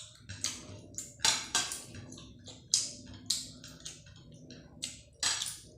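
Close-miked eating sounds: a person chewing and smacking mouthfuls of curry and rice, a run of irregular short wet crunches and clicks.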